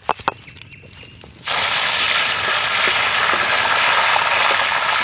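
Green leaves, likely mint, deep-frying in hot oil in an iron kadai: a loud, steady sizzle that starts abruptly about a second and a half in.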